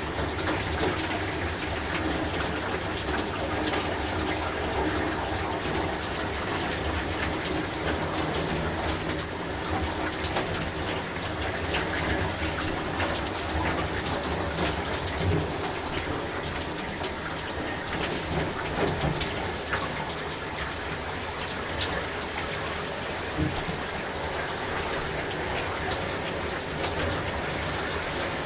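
Shower running steadily, water spraying and splattering on a person and the floor of the stall, with small irregular splashes and knocks.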